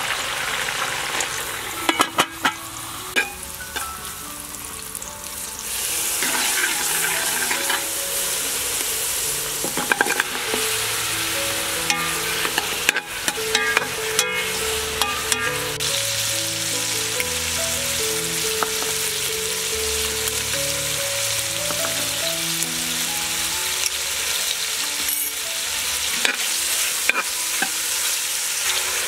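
Pork ribs and shallots sizzling as they fry in an aluminium pot, stirred with a metal spoon that clicks and scrapes against the pot. The sizzle gets louder about six seconds in. Soft background music plays underneath.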